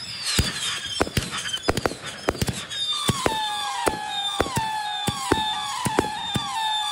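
Multi-shot consumer firework cake firing: a rapid string of sharp bangs and crackles mixed with whistling shots, each whistle falling in pitch, about two a second, lower and stronger from about three seconds in.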